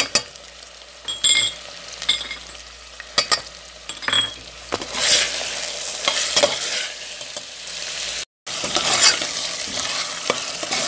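A steel spoon stirs boiled beef and spice masala frying in oil in a pot, scraping and clinking against the pot over a steady sizzle. This is the masala being bhunoed (fried down). The sound cuts out briefly about eight seconds in.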